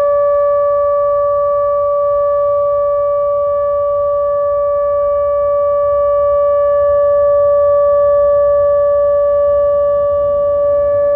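ATI HPSS-32 electronic outdoor warning siren sounding a steady tone: one held pitch with overtones that never rises or falls, heard outdoors over a low rumble of wind or traffic.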